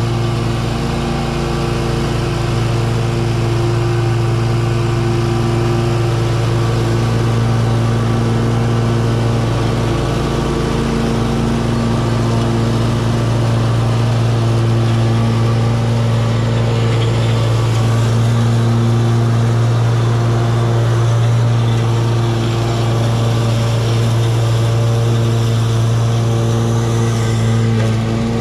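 Gravely 52-inch residential zero-turn lawn mower running steadily at high throttle with the blades engaged, cutting tall, wet grass.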